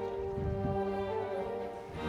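Slow, sustained orchestral string music with violin and cello holding long notes.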